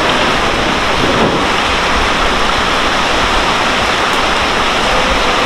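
Heavy rain pouring steadily, a dense hiss. Faintly through it, the motors of an E233-series electric train whine briefly in pitch about a second in as the train begins to pull away.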